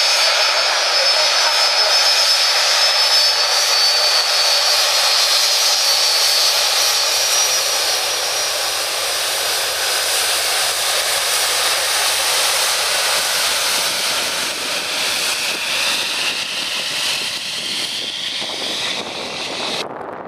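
Boeing 757-200 freighter's twin jet engines running loud: a steady roar with a high whine that drifts slowly down in pitch. Near the end the sound drops off abruptly.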